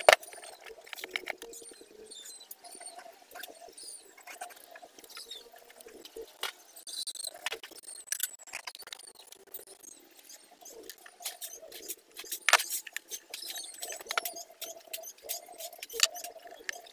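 Irregular light clicks, taps and scratching of hand work on a small metal part, with a few sharper clicks about twelve and sixteen seconds in.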